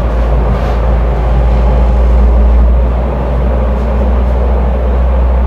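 A steady, loud low mechanical hum, like a running motor or engine, with a rough noisy layer above it that does not change.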